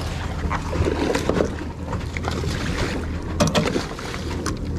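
Low steady hum of the boat's twin Mercury Verado 300 V8 outboards idling, with wind on the microphone and the knocks of fishing tackle being handled, including a quick cluster of sharp clicks about three and a half seconds in.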